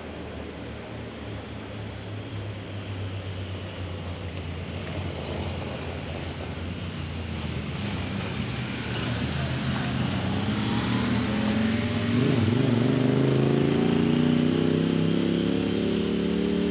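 Truck or SUV engine working through a rough trail dip in four-wheel-drive low range, the revs climbing from about eight seconds in and holding higher near the end.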